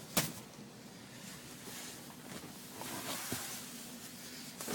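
Rear seat cushion of a pickup's back seat being folded up: a single sharp click just after the start, then faint handling knocks.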